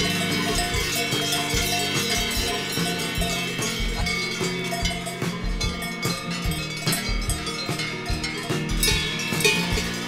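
Background music with bright, bell-like clanking over it.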